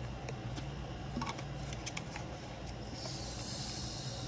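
Light clicks and rustles of paper and binder handling, then an even, high hiss for just over a second near the end, over a steady low hum.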